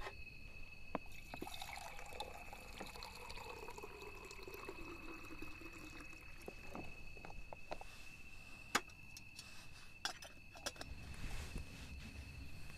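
Water poured from a plastic container into a metal camping pot, gurgling for about five seconds with its pitch sliding steadily lower. A few sharp knocks follow near the end.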